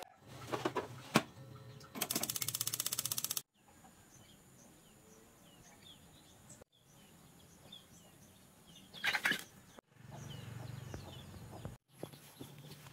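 Small birds chirping faintly over quiet outdoor background, heard in several short cuts. Near the start a fast, even rattle lasts about a second and a half, and a brief louder noise comes about nine seconds in.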